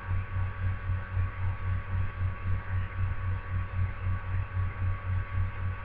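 Low electrical hum that pulses about five times a second, with faint steady higher-pitched tones above it.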